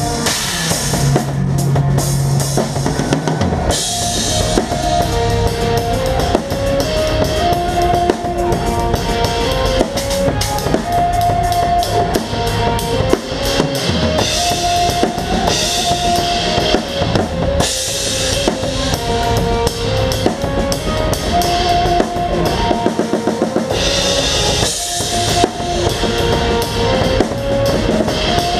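A live rock band playing, led by a drum kit heard close up: dense bass drum, snare and cymbal hits, with a melodic line of held notes stepping up and down over it.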